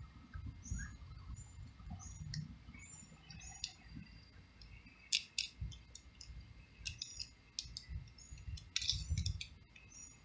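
Sharp metal clicks of a flathead screwdriver working the screw of a brass hose coupling, a few at a time, with the clearest about five seconds in and near nine seconds. A small bird chirps repeatedly in short notes behind it.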